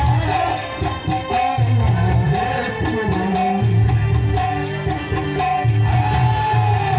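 Live stage music for a naach dance show, played loud through loudspeakers: a singing voice over a rhythmic drum beat and jingling percussion.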